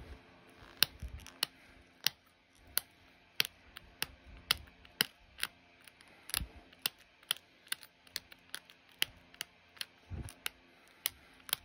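Copper-tipped pressure flaker snapping small flakes off the base edge of an opalite arrowhead: a run of sharp, irregular clicks, about two a second.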